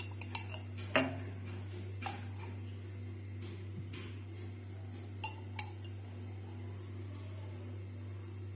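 Metal spoon clinking against a glass jar as pizza sauce is scooped out, then tapping and scraping on a steel plate as the sauce is spread over the dough: a few sharp clinks, the last two close together a little after five seconds in. A steady low hum runs underneath.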